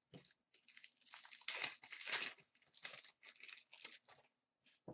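Wrapper of an Upper Deck hockey card pack crinkling and tearing in a run of rustles as it is ripped open, with a short soft thump at the end.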